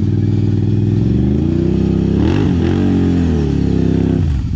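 Quad ATV engine running hard under throttle, its revs surging and wavering about halfway through and then dipping sharply near the end, as the wheels spin on a steep dirt slope.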